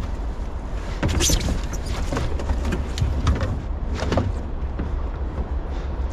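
Plastic kayak launching off a muddy bank into still water: hull sliding and scraping, then water sloshing as paddling starts. A few sharp splashes or knocks come about a second apart over a steady low rumble.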